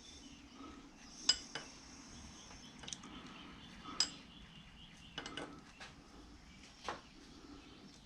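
Light metallic clinks and taps of hand tools on metal, a handful of separate strikes spread over several seconds, the loudest about a second in.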